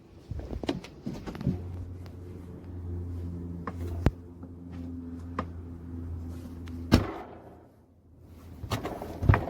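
Several sharp knocks and thuds. A steady low hum starts about a second and a half in and stops with a loud click about seven seconds in, and another knock comes near the end.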